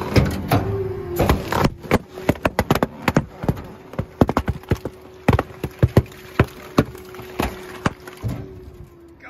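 Dozens of latex balloons popping in quick, irregular succession as a rear-loading garbage truck's packer crushes them, over the truck's steady hum. The pops come thickest in the middle and thin out near the end.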